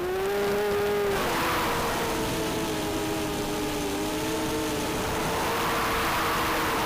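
Eachine Falcon 180 racing quadcopter's brushless motors and propellers whining in flight, the pitch climbing at the start, dropping about a second in, then shifting up and down with the throttle.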